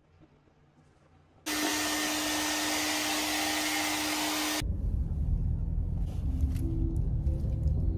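Handheld hair dryer blowing with a steady hum, switching in abruptly about a second and a half in and cutting off about three seconds later. A low rumble of a car cabin follows.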